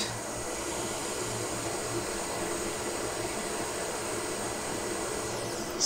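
Hot air rework station blowing a steady hiss of hot air onto a NAND chip, reflowing the solder beneath it so the chip settles into position on the phone's logic board.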